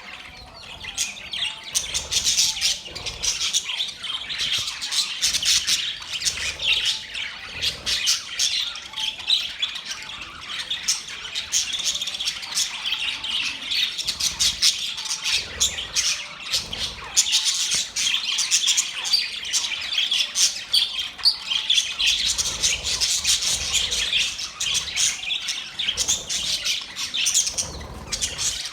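Several budgerigars chattering together: a steady stream of rapid chirps, warbles and short squawks.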